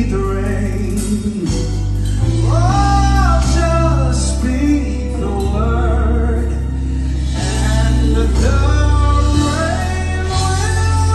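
Male gospel singer singing live with keyboard accompaniment, his voice bending and sliding between notes over sustained low bass notes.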